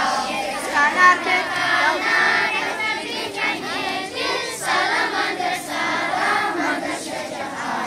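A large group of young children singing together, many voices at once.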